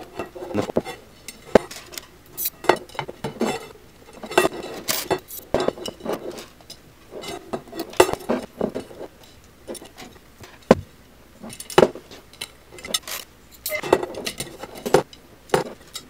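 Irregular metallic clinks and taps of metal spokes being threaded through the holes of a BMX hub flange and rim while a wheel is laced, with spoke nipples rattling.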